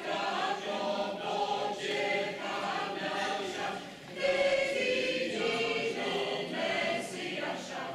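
Mixed choir of men's and women's voices singing, with a brief break between phrases about four seconds in and the next phrase entering louder.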